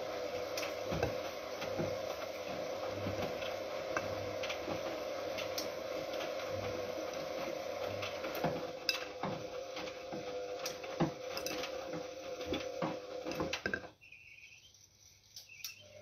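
Siemens Siwamat Plus 573 front-loading washing machine tumbling a wash load: a steady motor hum with a soft pulse about once a second, and many clicks and clinks as the load falls against the drum. About two seconds before the end the motor and drum stop suddenly, the rest between turns of the wash cycle.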